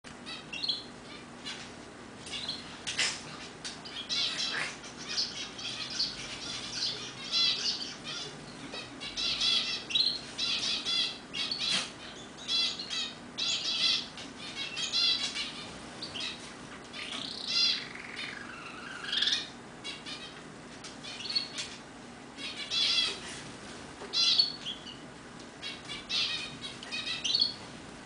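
Roller canary singing: short, fast-trilled phrases repeated over and over with brief gaps, broken by sharp clicks.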